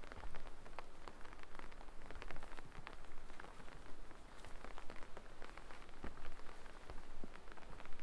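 Light rain falling in a forest: a constant scatter of small, irregular drop ticks over a soft hiss.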